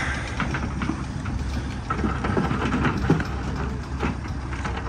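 Case crawler excavator's diesel engine running steadily, with a few short knocks and clanks over it.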